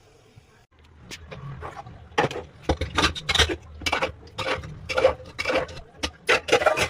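A spoon scraping and stirring food in a cooking pan: a run of short scraping strokes, about two a second, starting about a second in.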